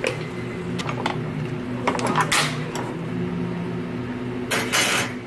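Light clicks and taps of metal tongs and glass as garnish is set into an iced drink, with two short hissy swishes, one about two seconds in and one near the end, over a steady low hum.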